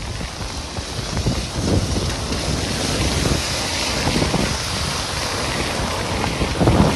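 Hurricane wind buffeting the microphone over a steady hiss of wind-driven rain, with a stronger gust near the end.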